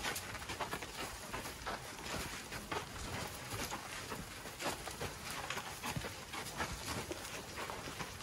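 Feet of a walking elephant herd scuffing and crunching on a sandy, gritty track: a steady jumble of irregular soft steps.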